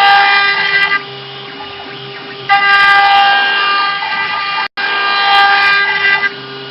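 CNC engraving router's spindle running with a steady high whine while machining PVC, growing louder in stretches of one to two seconds and dropping back between them.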